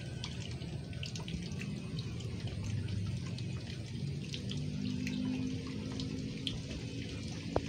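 Steady running or trickling water, with scattered faint ticks.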